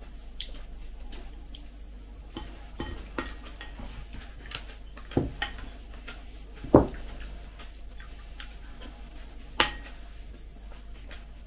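Metal spoon clinking and scraping against a ceramic plate while scooping porridge: scattered light taps, with louder clinks about five, seven and ten seconds in.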